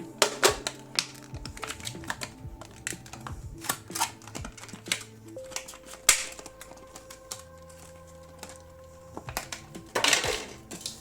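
Handling noise from opening a Pokémon card tin and its packaging: a run of irregular clicks, taps and plastic rustles, with two longer scraping rustles about six and ten seconds in. Quiet background music with held notes runs underneath.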